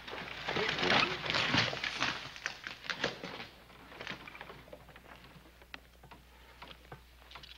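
Horse hooves clopping unevenly, loudest in the first three seconds, then thinning out and quieter.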